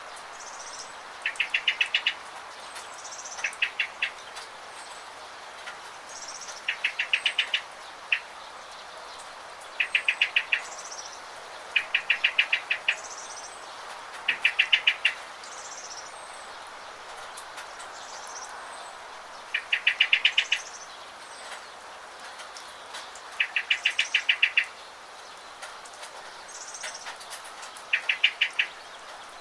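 Songbird chirping over steady rain: repeated quick runs of rapid, evenly spaced chirps, each about a second long and a few seconds apart, with fainter high chirps between them over the even hiss of rainfall.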